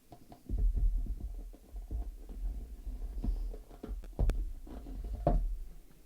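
Irregular dull thumps and knocks on a tabletop, with a few sharper clicks, as a box is handled and tapped close to the microphone.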